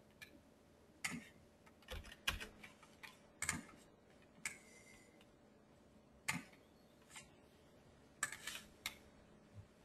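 About a dozen faint, irregular clicks from a computer mouse and keyboard, some in quick clusters, over a faint steady hum.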